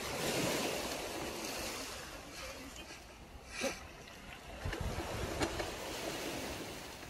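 Surf washing on the shore, a wave of noise swelling in the first second or two and slowly fading, with wind on the microphone. A few sharp clicks come through the middle, the loudest about halfway in.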